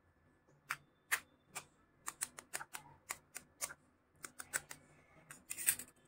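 A raw egg tapped again and again against the rim of a plastic bowl to crack its shell: a run of light, sharp taps, a few a second, loudest near the end as the shell gives way.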